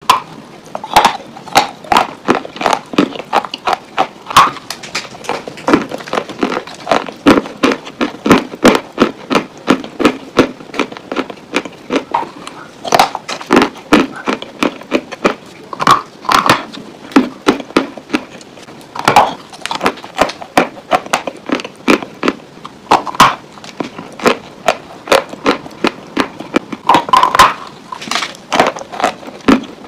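Dry Turkestan white clay being bitten and chewed: a continuous run of sharp, dry crunches, two or three a second, with crumbly crackling between.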